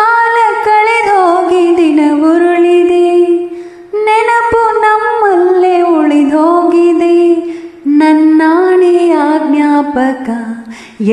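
A woman's voice singing a wordless melody in three long phrases of about four seconds each, the pitch sliding between held notes.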